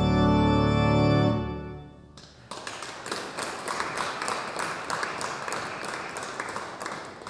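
An organ holds a final full chord that cuts off about a second in and rings away in the room. About a second later comes a spell of irregular clapping.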